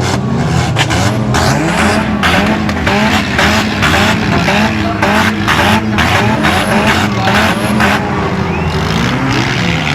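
Several demolition derby cars' engines revving hard at once, their pitch rising and falling as they overlap, with tires spinning and skidding and a string of sharp cracks of noise.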